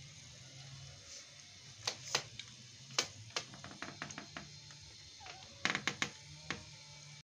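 Kittens feeding from a plastic plate on a tiled floor: scattered sharp clicks and taps, irregular and in small clusters, over a low steady hum.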